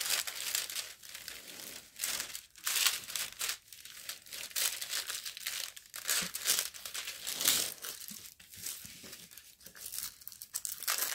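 Clear plastic protective film crinkling as hands press and smooth it flat over a diamond painting canvas, in irregular crackles with louder bursts now and then.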